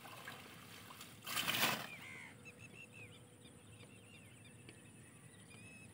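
A short splash and rustle of water and water hyacinth about a second and a half in, as plants are pulled from a net. This is followed by small birds twittering in quick, high chirps.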